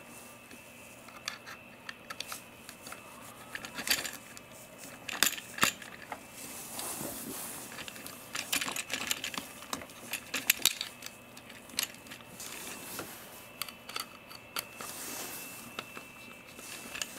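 Irregular small metallic clicks, taps and light scrapes of a screw and thin screwdriver worked by hand on the metal arm linkage of a Huina 1593 RC excavator as a grapple claw is pinned on. The loudest clicks come about five seconds in and again about ten seconds in.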